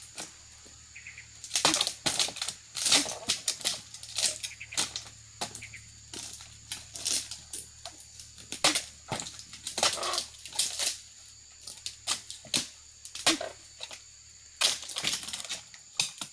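Repeated chops of a long-poled dodos chisel blade jabbing into the bases of oil palm fronds, each cut a sharp knock mixed with the rustle and swish of stiff palm fronds, coming in irregular bunches.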